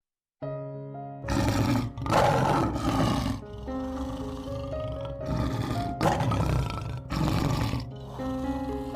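Several loud animal roars, the first about a second in, the others near the middle and near the end, over background music with sustained notes.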